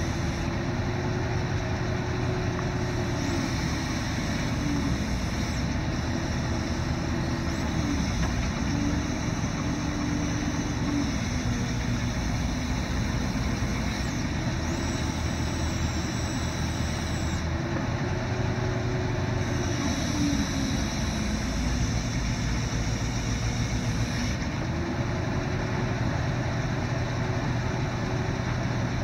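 A 1970 Dodge dump truck's engine idles steadily while driving the hydraulics of its knuckle-boom grapple. A pitched hydraulic whine rises and falls back about six times as the boom is worked.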